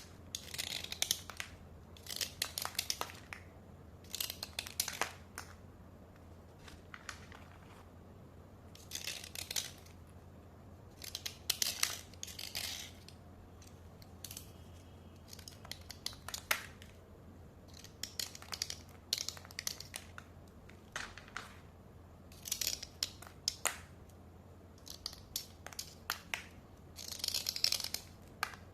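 Slate pencils being dry-scraped: short clusters of scraping strokes every few seconds, with quiet pauses between them.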